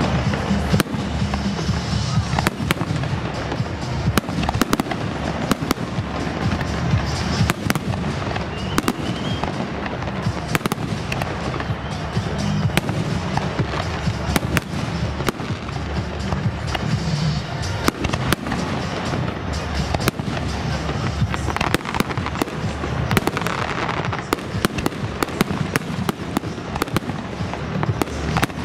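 Fireworks display: a dense, irregular run of bangs and crackles over a continuous low rumble.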